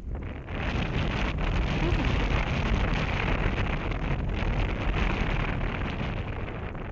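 Wind buffeting the microphone: a loud, rushing rumble that swells about half a second in and holds.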